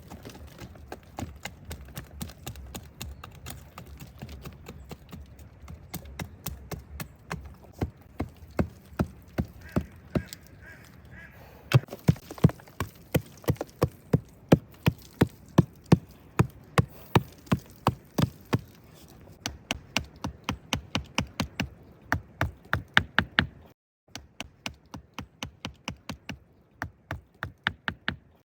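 A tool striking wood over and over, about two sharp strikes a second, the kind of chopping done when cutting timber for a shelter. It stops for a moment near the end, then carries on.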